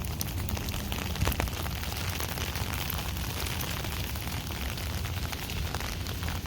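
Steady rain with many separate drops hitting close by, as sharp ticks over an even hiss and a deep rumble.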